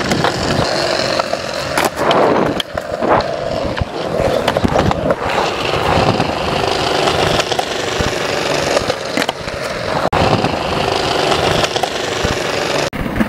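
Skateboard wheels rolling on smooth concrete, a steady rumble, broken several times by sharp clacks of the board hitting the ground.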